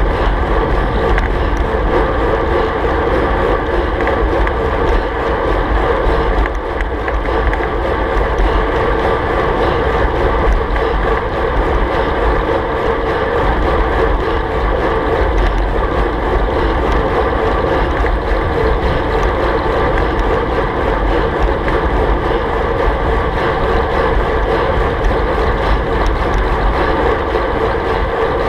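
Steady, loud wind rushing over the microphone of a handlebar-mounted GoPro on a road bike ridden at about 50 km/h.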